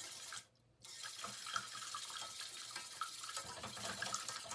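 A utensil scraping and stirring around a stainless steel pot of egg-yolk and lime custard on a gas burner, over a steady hiss, with a short gap about half a second in.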